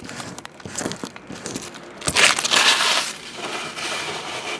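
Trading-card packaging being handled on a table: crinkling and rustling with small clicks, and a louder burst of crinkling about two seconds in.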